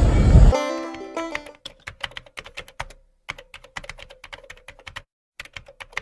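Rapid keyboard-typing clicks, a sound effect laid over text being typed out on screen, with short pauses about three seconds and five seconds in. It opens with a short loud burst, and the last of a banjo tune fades out in the first second and a half.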